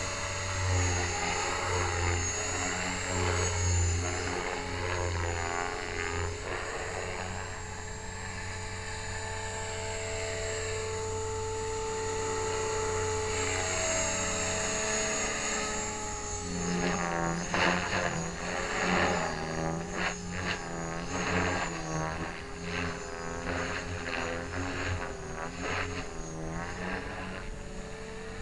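Align T-Rex 500 ESP radio-controlled helicopter flying aerobatics: the whine of its motor and rotor shifts in pitch as it manoeuvres. From about halfway through, the blades whoosh in quick repeated pulses as it flips and rolls.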